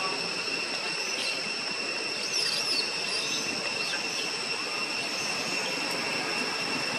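Steady high-pitched insect drone over a rough hiss, with a short squeaky chirp about two and a half seconds in.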